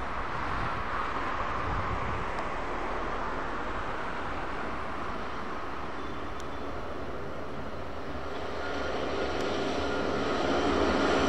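Road traffic with heavy trucks passing, a steady rush of engines and tyres. A louder vehicle approaches over the last couple of seconds, adding a steady engine tone.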